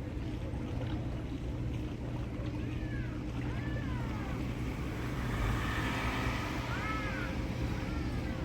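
A small hire boat's motor running steadily, with water rushing along the hull, the rush swelling for a few seconds past the middle. Short rising-and-falling chirps come twice, in little groups.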